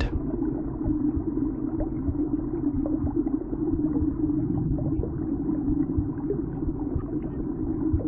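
Steady low rumbling drone of sound-design ambience, with faint scattered crackles over it.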